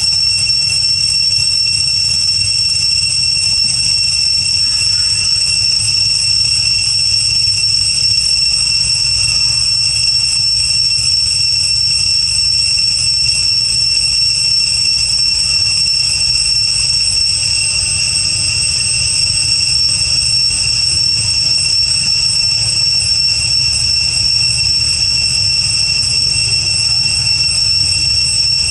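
Cicadas droning in a steady, high, unbroken pitch, with a low rumble underneath.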